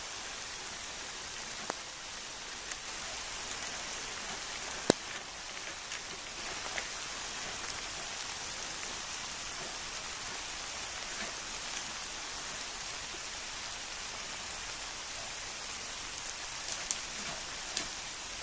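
Steady rain falling, an even hiss with scattered sharp taps of drops, one louder tap about five seconds in.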